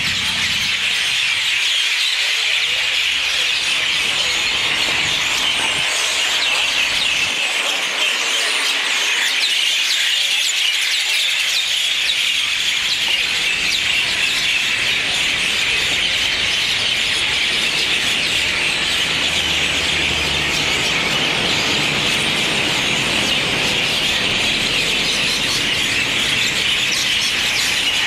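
A large flock of small birds chattering in street trees as they gather to roost for the night: a loud, continuous din of shrill calls with no break.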